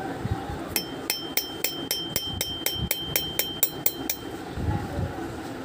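A small hammer tapping a steel punch against a brass idol in a quick, even run of about fourteen light strikes, about four a second. A high steady ring from the brass carries under the strikes. The strikes stop about four seconds in.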